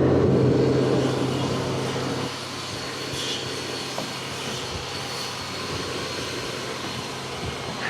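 A steady motor hum that fades about two seconds in, leaving a quieter steady background noise with a faint high whine.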